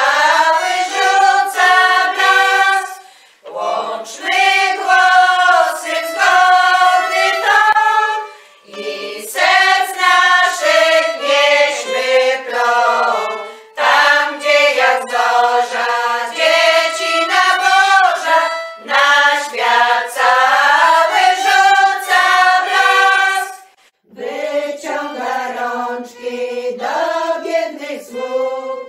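Women's folk choir singing a Polish Christmas carol together, in phrases of about five seconds with a short breath between each.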